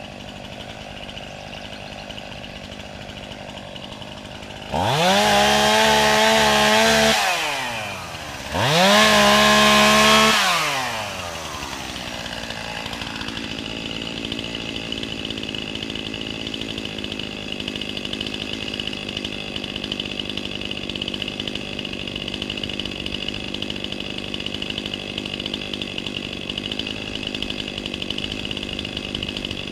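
Two-stroke chainsaw idling, then revved to high speed twice for about two seconds each, dropping back to a steady idle between and after.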